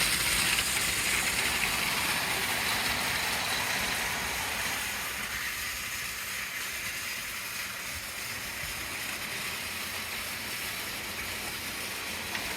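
A model train running on its track, a steady hissing rumble that fades over the first several seconds and then holds steady.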